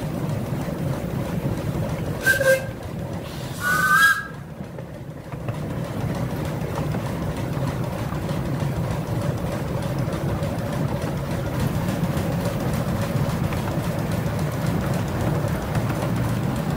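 10¼-inch gauge miniature steam train running steadily along the track with passengers aboard, its whistle giving two short toots about two and four seconds in, the second one two-toned.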